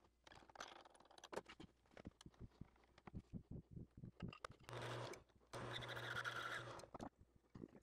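Workshop sound sped up ten times. First comes a rapid jumble of short clicks and scrapes as a nylon washer is handled and test-fitted. Then, about five seconds in and again a little later, a wood lathe runs with a steady hum under a hiss as a carbide tool turns down the nylon washer.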